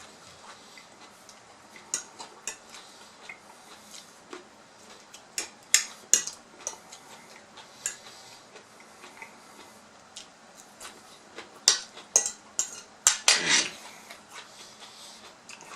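Eating utensils clinking and scraping against a plate in irregular sharp clicks, busiest about six seconds in and again near the end.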